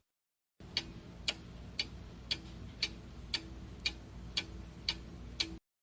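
Clock-ticking countdown sound effect: about ten even ticks, two a second, over a faint low hum, counting down the guessing time.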